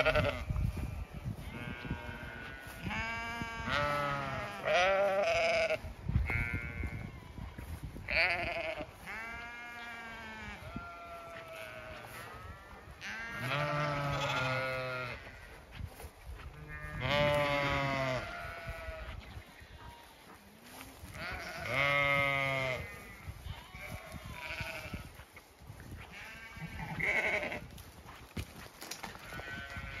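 Zwartbles sheep bleating again and again, about a dozen long, wavering calls, some overlapping, with wind buffeting the microphone.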